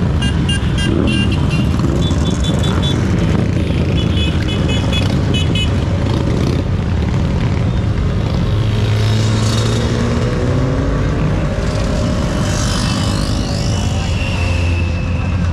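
Motorcycles riding past one after another in a procession, engines running at low road speed, with a car passing partway through.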